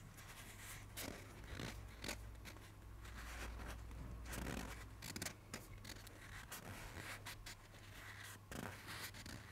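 Fingers pressing and rubbing a rubber inner-tube patch down onto a cemented bicycle inner tube so that it bonds: faint, irregular scratchy rubbing with small clicks and scrapes.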